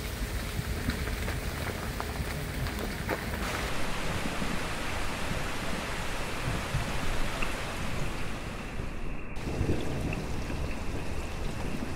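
Steady rain falling on the forest canopy and wet ground, with scattered single drops ticking through the hiss. The brightest part of the hiss thins out abruptly about nine seconds in.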